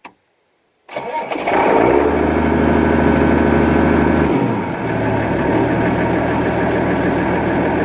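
An engine starting about a second in, then running steadily, its low note shifting once around the middle.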